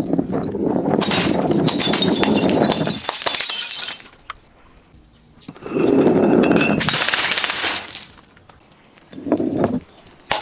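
A glass bottle being crushed and breaking, with crunching and shattering glass in two long bouts of a few seconds each and a short burst near the end.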